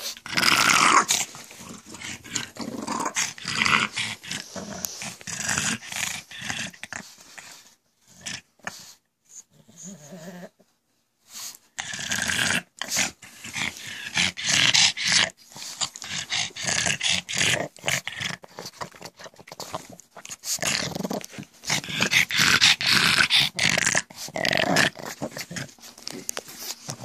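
Pug making its rough, harsh noises in quick bursts one after another, going quiet for a few seconds around the middle.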